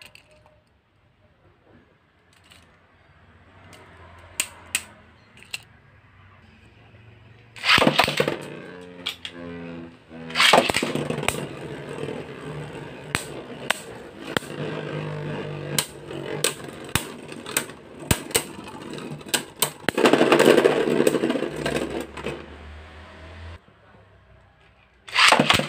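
A few light plastic clicks, then two Beyblade Burst spinning tops launched into a plastic stadium a few seconds apart. They whirr and clatter as they spin and knock into each other, with a loud stretch of clashing near the end before the spinning dies down. Another launch comes right at the end.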